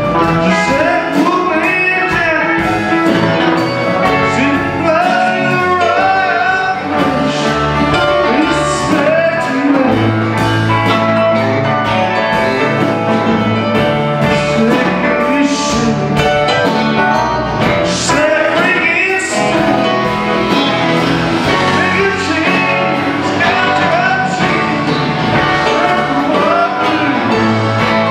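Live rock band playing full out: electric guitars, keyboard, bass guitar and two drum kits together.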